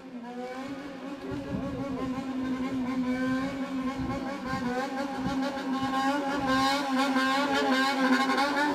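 Motorcycle engine revved rhythmically on the throttle as it rides slowly up, its pitch rising and falling in quick waves. It grows louder toward the end.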